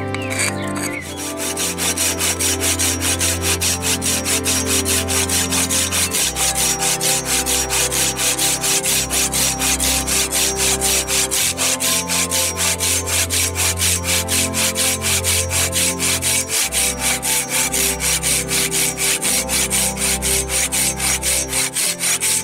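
A hand tool working wood in quick, even back-and-forth strokes, about four a second, starting about a second in, over background music.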